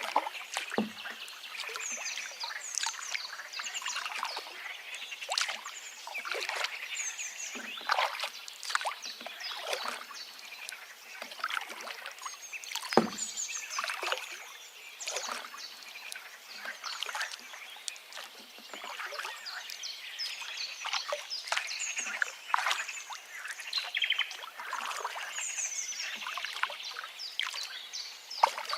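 Forest ambience: many birds chirping and trilling over a river's water, which keeps splashing and gurgling in quick short bursts. About 13 s in there is a single sharper, louder splash.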